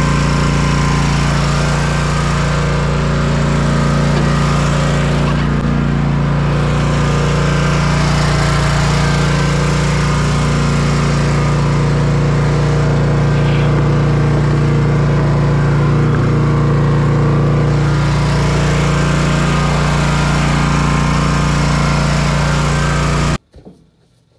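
Zero-turn riding mower engine running steadily at close range, with no change in speed, then the sound stops abruptly near the end.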